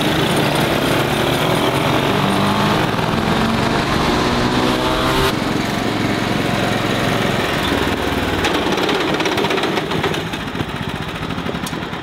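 Small riding-tractor engines running hard and accelerating in a race, their pitch rising over the first few seconds. The sound changes suddenly about five seconds in, then carries on steadily and eases off near the end.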